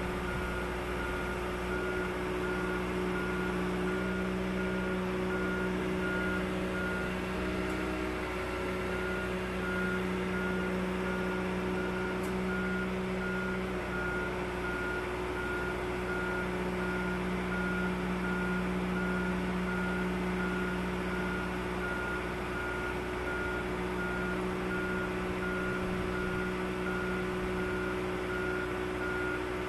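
A machine's warning beeper sounding steadily, short beeps at one high pitch repeating evenly, over the continuous hum of a motor, as on the hydraulic transport frames that carry a yacht through the factory.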